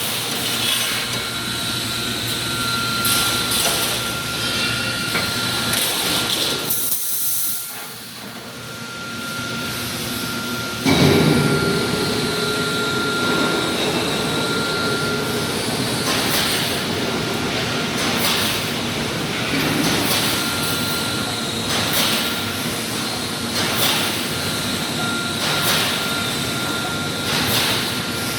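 Wire mesh welding machine running, with a short hissing stroke about every two seconds over a steady mechanical din. It dips briefly about seven seconds in and comes back louder and deeper about eleven seconds in.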